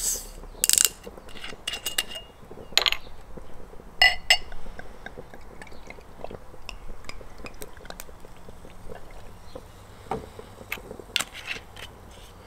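A screw-cap bottle of Merrydown cider being opened, then cider poured into a glass: sharp clicks and a ringing glass clink in the first few seconds, then light pouring with many small ticks and clinks.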